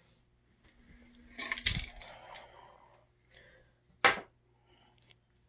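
Small hard parts being handled: a short burst of clinks and rattling, then a single sharp click about four seconds in.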